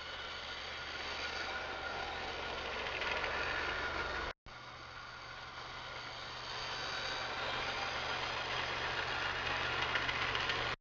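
Lima O-scale (1:45) model train running along its track: steady whir of the electric motor and rattle of the wheels on the rails, getting louder as the train approaches. The sound cuts out for an instant about four seconds in.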